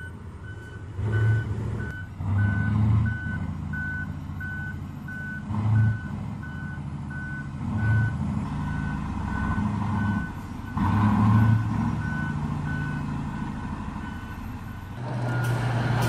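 Mining haul truck's reversing alarm beeping steadily, about one and a half beeps a second, over the low drone of its diesel engine, which swells louder several times. The beeping stops near the end as the engine noise rises.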